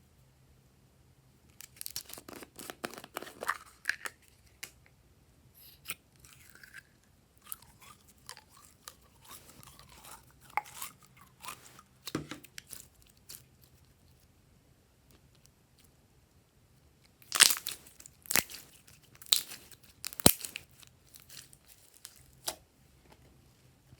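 Slime being squished and worked by hand, giving bursts of crackling and sharp pops. A cluster of loud snaps comes near the end.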